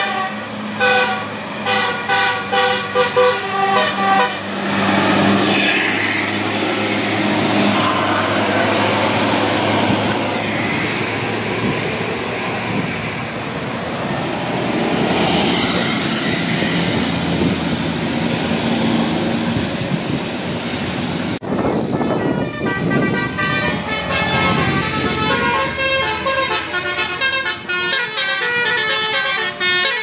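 Indonesian tour buses' 'telolet' multi-tone horns playing short rhythmic tunes, then a coach's engine running loud as it passes close by. After a cut about 21 seconds in, another bus's telolet horn plays a quick tune.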